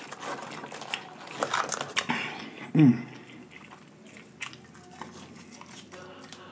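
Close-miked eating of French fries: fries picked up and chewed with small wet clicks and mouth smacks. A brief low voiced sound from the eater, falling in pitch, comes about three seconds in and is the loudest moment.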